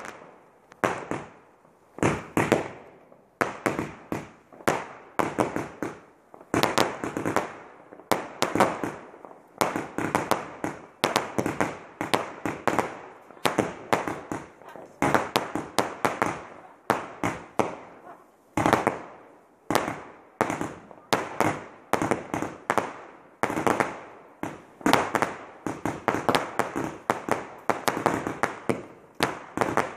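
Fireworks going off: a long run of sharp bangs from bursting shells, about two a second, each one trailing off briefly.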